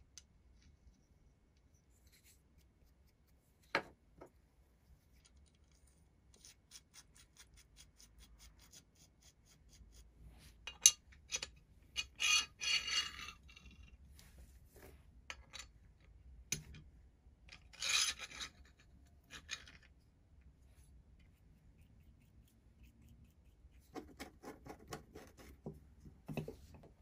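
Metal parts of a Record No 50 combination plane being handled and reassembled: a few sharp clicks, fine ticking and short rasping bursts as threaded steel rods are screwed into the cast-iron body. Near the end there is a quick run of ticks as a screwdriver turns a screw.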